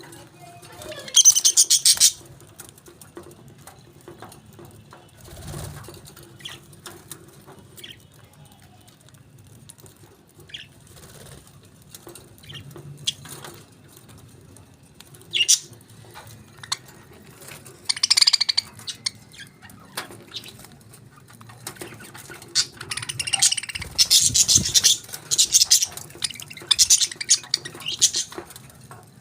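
Pet parakeets chirping and chattering in bursts of rapid high-pitched notes. The bursts come about a second in, around the middle, and almost without pause through the last several seconds, with scattered light clicks between them.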